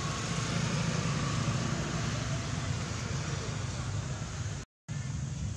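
Steady low rumble with an even hiss over it: outdoor background noise, with no clear animal call. The sound cuts out completely for a moment about four and a half seconds in.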